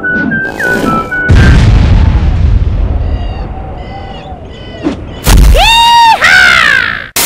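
A whistled tune is cut off about a second in by a loud cartoon explosion boom from a bazooka shot, with a long deep rumble that slowly dies away. Near the end come loud, high, arching cartoon voice cries.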